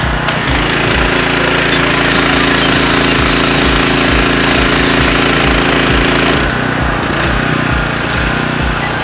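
Simpson PS4240H gas pressure washer running while its red zero-degree tip fires a loud, hissing jet of water onto concrete. The trigger is released about six seconds in; the spray cuts off suddenly and the engine keeps running.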